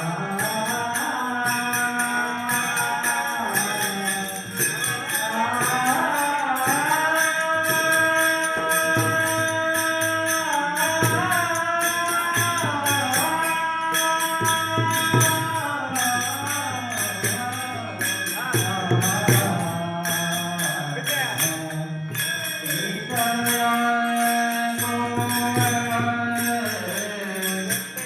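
Marathi devotional bhajan: a voice singing long held, ornamented notes over steady metallic percussion that keeps an even beat.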